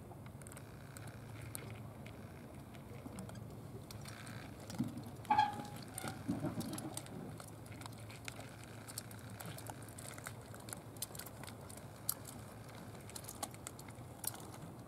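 A cat crunching dry kibble from a plastic dish: faint, scattered crunching clicks. About five seconds in a brief pitched squeak, the loudest sound, is followed by a few low thuds.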